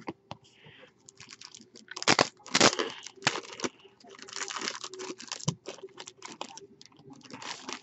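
Foil wrapper of a Bowman Chrome baseball card pack being crinkled and torn open by hand, with the cards slid out. It comes in irregular crackling bursts, loudest a little after two seconds in, with a longer run of crinkling about four seconds in.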